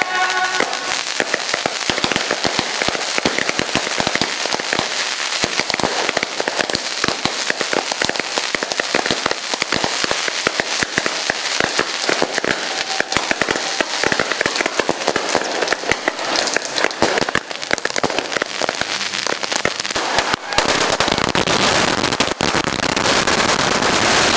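A long string of firecrackers going off in a rapid, continuous crackle of pops, growing a little louder and fuller near the end.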